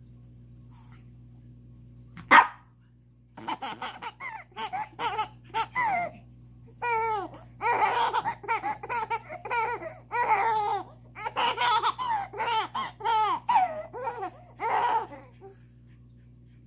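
A single sharp bark from a small dog about two seconds in, the loudest sound here. Then, from about three seconds in until near the end, a six-month-old baby laughs in a long run of short, high giggles.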